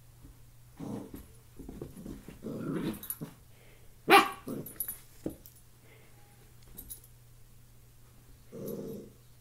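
Puppy growling at its own reflection in a mirror in short low rumbles, with one sharp bark about four seconds in and another growl near the end.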